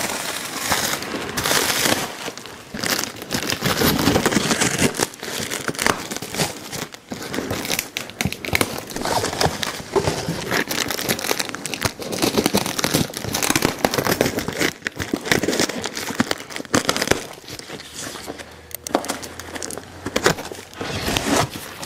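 Clear plastic wrap crinkling and tearing as it is cut and pulled off a cardboard box, in an irregular run of crackles, with the box's cardboard flaps being opened.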